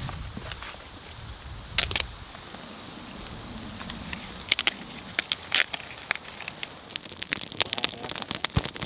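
Campfire of split kindling stacked in a teepee, crackling and popping, the pops coming thicker toward the end. Before that, a few sharp snaps about two seconds in, with a low wind rumble on the microphone at the start.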